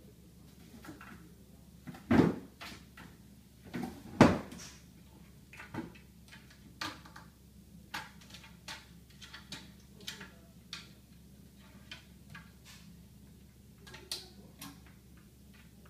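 Kitchen cabinet door knocking and rattling against its childproof lock as a dog pushes at it: two heavy knocks about two and four seconds in, then a run of lighter, irregular clicks and taps.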